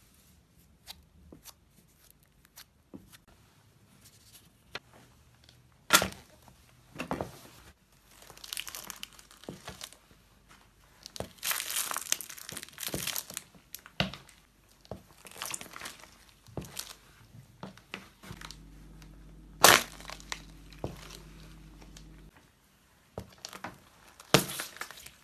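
Small objects being crushed under a sneaker's sole: a run of crunching and crackling with scattered sharp snaps, the loudest about six seconds in and near the twenty-second mark.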